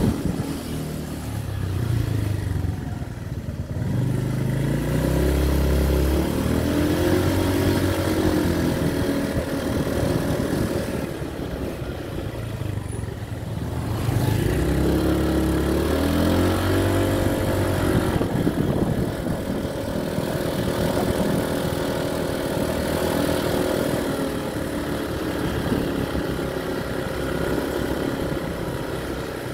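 An engine running steadily, its pitch rising and falling twice as it revs up and eases off.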